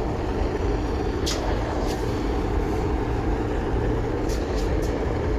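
A steady low mechanical rumble, like a machine or motor running, with a few light sharp clicks, three of them close together near the end.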